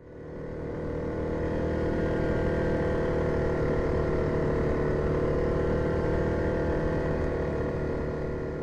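2017 Yamaha Grizzly 700 ATV's single-cylinder four-stroke engine running at a steady cruising speed, with a constant hum of even tones that fades in over the first second.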